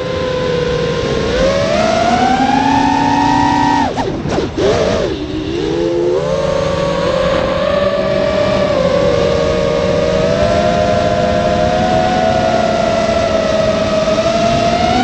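FPV racing quadcopter's brushless motors and propellers whining, heard from the onboard GoPro. The pitch rises, dips sharply and briefly about four seconds in, then climbs back and holds fairly steady with small swells.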